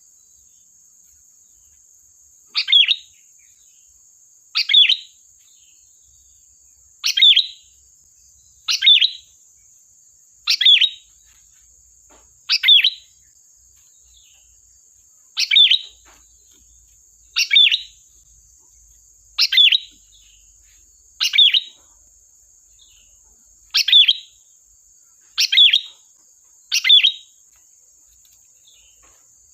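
Sooty-headed bulbul (kutilang) giving short, sharp calls, about one every two seconds, thirteen in all.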